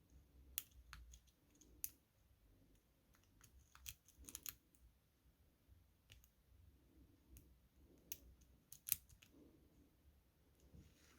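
Faint, irregular clicks and light scrapes of a lock pick working the pin stack inside the keyway of a six-pin Federal lockout/tagout padlock held under tension.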